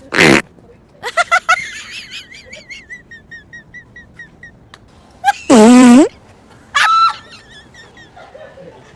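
Fart noises: a short loud one at the start, and a longer, louder buzzing one a little past the halfway point. High-pitched voice sounds fall between and after them.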